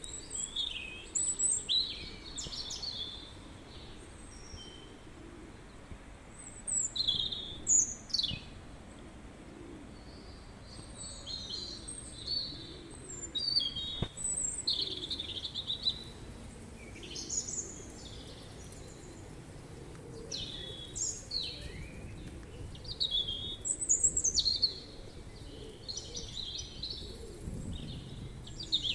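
Small birds chirping and calling over and over in short, high, irregular bursts, over a steady low background rumble.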